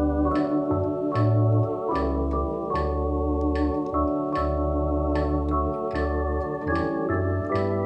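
Tokai D2 two-manual electronic organ playing a four-part hymn at a slow, steady tempo of about 75 beats a minute: held chords over a bass line, changing every half second to a second and a half, each change with a crisp attack.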